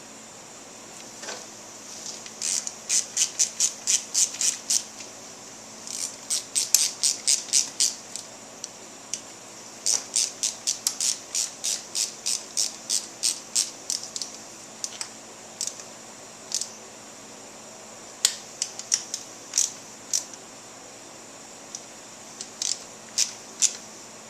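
Ratchet wrench clicking in quick runs of about four strokes a second, with short pauses between spells, as fork guard bolts are run down.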